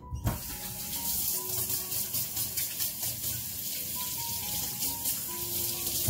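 Kitchen tap running steadily for about six seconds, starting just after a knock and cutting off suddenly at the end.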